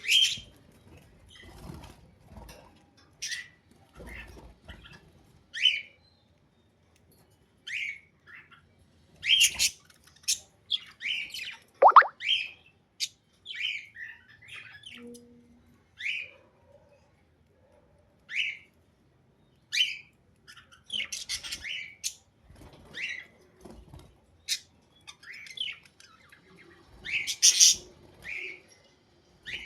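Budgerigars chirping and squawking in short, scattered calls with brief pauses between them, including one sharp call about halfway through that falls steeply in pitch.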